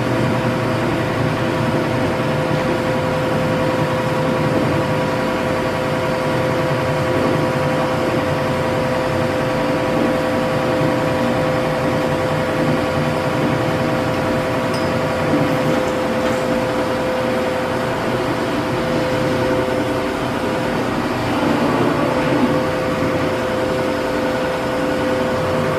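Steady hum of belt-driven shop machinery running, with a constant whine over a low rumble. A couple of faint clicks come from hand adjustment of a metal shaper about halfway through.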